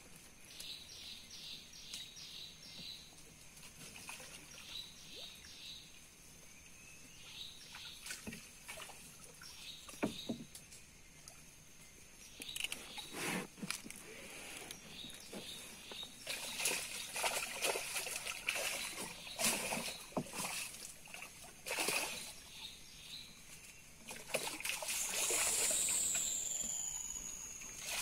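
Water splashing and sloshing against a wooden boat as a giant snakehead is hauled to the side on a set line and thrashes at the surface, with a series of sharp splashes. Near the end there is a high, falling whine.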